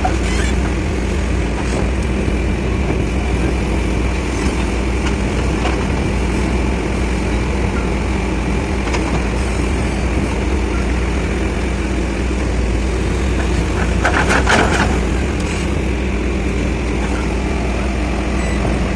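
Excavator's diesel engine running steadily, with a brief burst of clattering knocks about fourteen seconds in.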